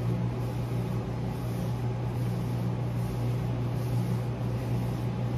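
A steady low hum of a running machine or appliance, unchanging throughout.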